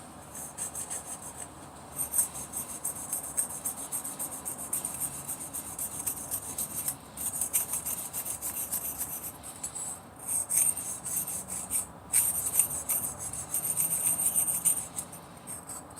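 Hair clipper blade being rubbed back and forth on a wet 1,000-grit sharpening stone: a run of rapid, scratchy grinding strokes, with short breaks about 7, 10 and 12 seconds in.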